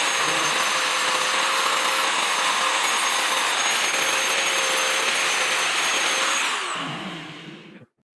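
Electric power tool motor running steadily at full speed, then switched off and spinning down, its whine falling in pitch over the last second or so.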